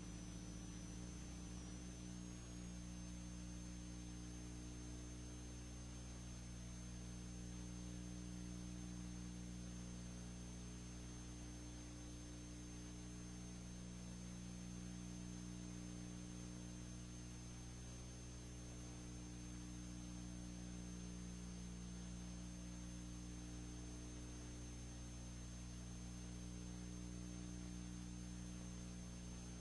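Steady electrical hum with a stack of overtones, over a constant hiss and a thin high whine. This is the background noise of a silent-film transfer, with no soundtrack of its own.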